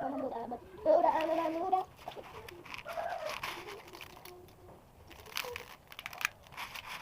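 Brief indistinct voice sounds, then a quick cluster of sharp clicks and crinkles from something being handled, about five seconds in.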